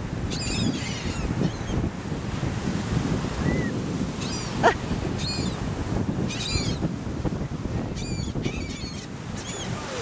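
A flock of gulls calling overhead: short, high squawks coming again and again, several in quick runs, over the steady rumble of breaking surf.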